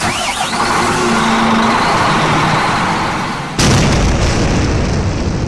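A loud rushing noise, then about three and a half seconds in a sudden deep boom from a quarry rock blast, which rumbles and slowly fades.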